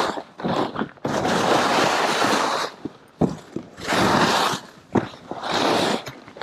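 Skis sliding and scraping through soft snow, a long hiss with each turn, about four turns with short gaps between them.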